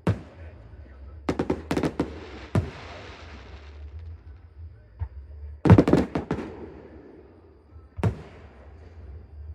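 Fireworks bursting overhead: a single bang, then a rapid cluster of bangs about a second in followed by a fizzing crackle, the loudest volley of bangs near six seconds, and one more bang near the end.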